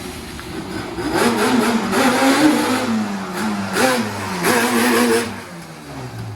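Yamaha Banshee quad's 350 cc twin-cylinder two-stroke engine revving in repeated throttle bursts, about four in all. The pitch jumps up with each burst and falls away after it, and the engine fades near the end.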